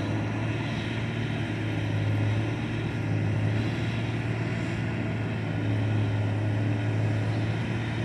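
Steady low drone of an idling engine, an even hum with no change in pitch.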